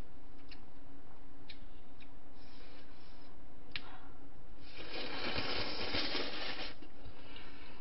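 Cold ramen noodles slurped into the mouth in one long slurp of about two seconds, starting a little past the middle, after a few faint clicks, all over a steady low hum.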